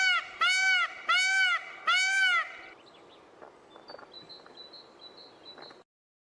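Repeated honking calls from a bird, each rising then falling in pitch, about two a second: five calls, ending about two and a half seconds in. Faint high chirps follow, and the sound cuts off shortly before the end.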